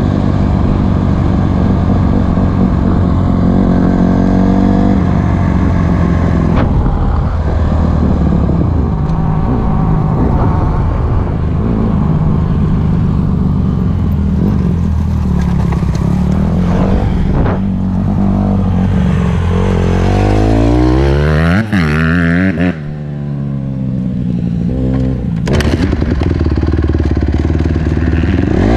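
Honda CRF150R dirt bike's single-cylinder four-stroke engine running under way, heard from on the bike. About two-thirds of the way in the revs drop and climb again several times as the throttle is eased off and reopened.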